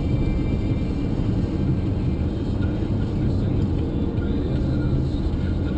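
A car driving at steady speed: a continuous low rumble of road and engine noise.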